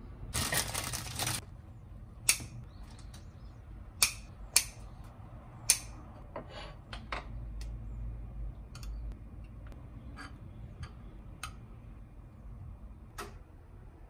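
Kitchen handling sounds: a rustling noise lasting about a second near the start, then scattered sharp clicks and clinks of dishes and utensils, a few of them much louder than the rest.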